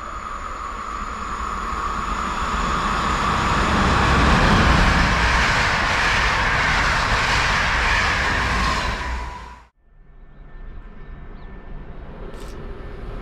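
Electric train passing at speed, the rush of wheels on rail building to its loudest about four seconds in, with a steady high whine over it. The sound cuts off abruptly near ten seconds in, after which a quieter rail noise starts building again.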